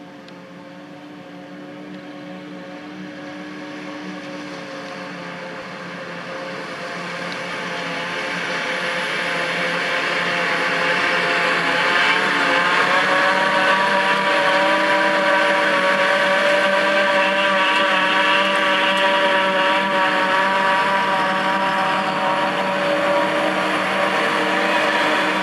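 John Deere self-propelled forage harvester chopping grass silage and blowing it into a tractor-drawn trailer running alongside: a steady machine whine of several pitches over engine noise. It grows louder over the first dozen seconds as the machines come closer, then holds steady.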